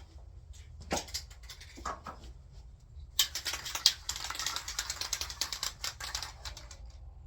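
Aerosol spray-paint can being shaken, its mixing ball rattling in quick rapid clicks for about three seconds, after a couple of separate knocks.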